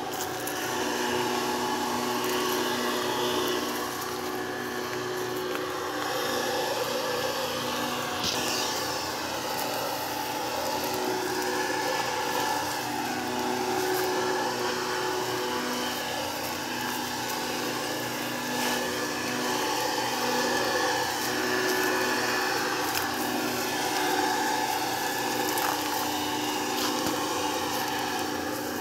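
Backpack electrostatic sprayer's blower motor running steadily with a whining hum as it blows out a fine spray mist.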